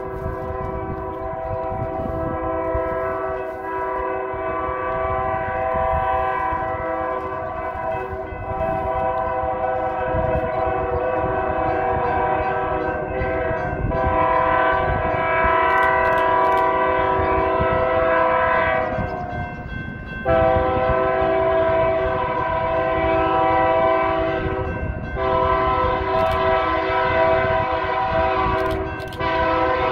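Diesel locomotive's multi-chime air horn blowing long, sustained chord blasts as the train approaches, growing louder, with a break about two-thirds of the way through and a brief dip near the end. A low rumble runs underneath.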